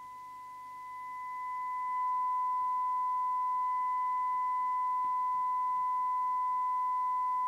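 Steady single-pitch test tone from the Audioline PT345 CB receiver's audio output, recovered from the signal generator's modulated S9 test signal. It drops in level at the start and swells back up over the next two seconds as the detector coil is tuned for maximum audio, then holds steady.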